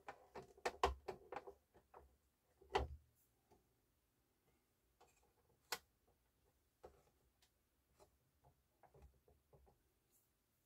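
Faint handling clicks and taps from the opened CD changer's plastic disc carousel and chassis being handled: a quick run of clicks in the first second and a half, a louder knock about three seconds in, a sharp click near six seconds, then scattered light ticks.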